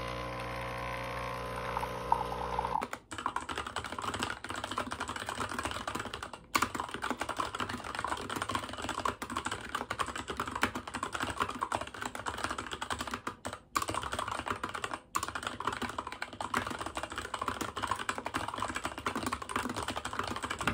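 A capsule coffee machine's pump hums steadily for the first few seconds as it pours espresso, then cuts off. Fast typing on a mechanical keyboard follows, a dense run of key clicks broken by a few short pauses.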